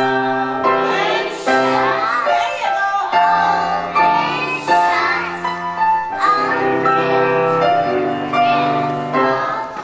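A song with singing voices over instrumental accompaniment, held notes changing every second or so; it starts abruptly.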